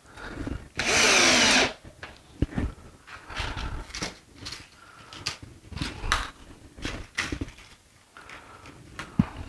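A power tool runs in one short burst of just under a second, followed by scattered knocks and clicks of wood and tools being handled at the workbench.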